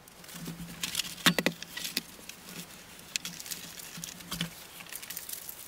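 Light handling noises: scattered clicks, taps and scuffs of a large drawing-tablet display and its cables being moved about on a cloth-covered desk, with a few sharper clicks about a second and a half in. A faint low hum runs underneath.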